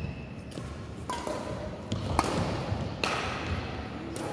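Badminton rackets striking a shuttlecock: a series of sharp hits about half a second to a second apart, the loudest a little past two seconds in, in a large echoing sports hall.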